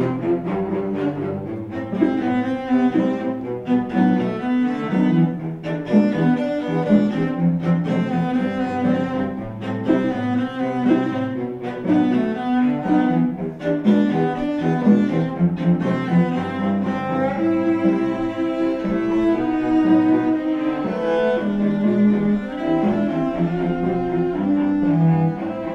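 Instrumental music for bowed strings, with cello and double bass to the fore, the notes moving on without a break.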